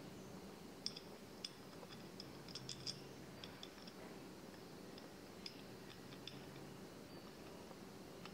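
Faint, scattered small clicks and ticks of a wooden knob and its metal bolt being fitted by hand into a ceramic drawer, with a few sharper clicks and a short cluster about three seconds in.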